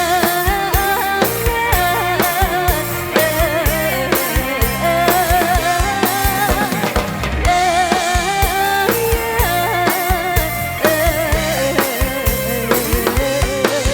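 Live band playing an instrumental break in a Thai Isan pop song: a drum kit with kick drum and rimshots keeping a steady beat under bass and a wavering lead melody.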